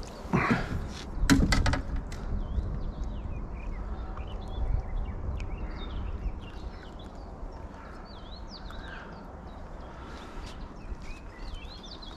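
Water splashing twice in the first two seconds as a hooked fish is handled at the surface beside the boat, then a low wind rumble on the microphone with small birds chirping faintly and repeatedly.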